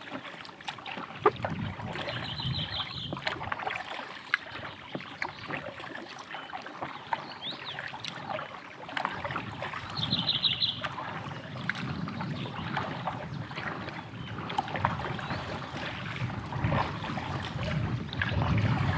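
Double-bladed paddle strokes dipping and splashing beside an inflatable packraft, water dripping and lapping with small knocks. A bird gives a short rapid trill twice, about two seconds in and again about ten seconds in.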